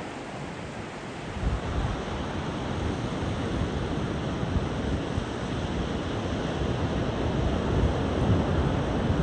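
Ocean surf washing onto a beach, a steady hiss of breaking waves, with wind rumbling on the microphone.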